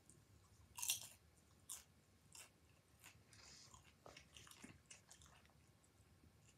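Near silence, broken by a few faint, irregular clicks and crackles.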